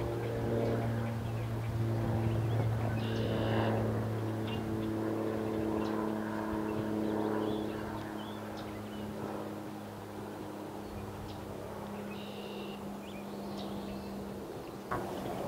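Distant engine drone, a steady low hum with overtones that slowly fades and sinks a little in pitch over the second half. Two brief high chirps come over it, about three seconds in and again near the end.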